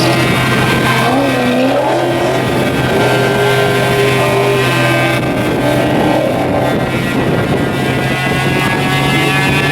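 Car engine running steadily at a constant speed without revving up or down, a steady low drone under a whine of several high tones.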